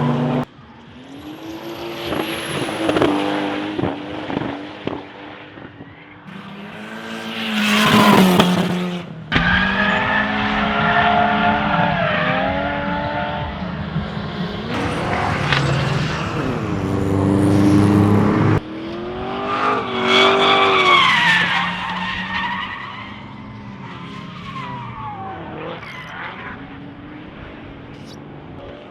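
Performance cars on a race track, their engines revving and climbing and falling in pitch, with tyres skidding and squealing as they slide. The sound changes abruptly several times as one clip gives way to another.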